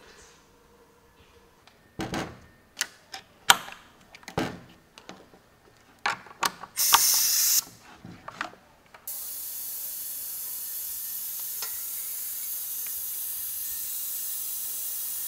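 A run of clicks and knocks, a short burst of compressed air about seven seconds in, then from about nine seconds a steady high hiss of shop air driving a pneumatic vacuum fluid extractor.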